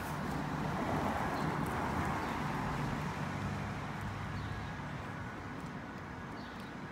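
Engine and road noise of a car driving along a street, with a rushing sound that swells about a second in and slowly eases off. A few faint short bird chirps come through now and then.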